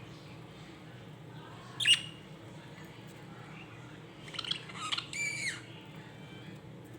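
Budgerigars calling: one sharp loud squawk about two seconds in, then a short run of chirps and a harsher call a couple of seconds later, over a faint steady hum.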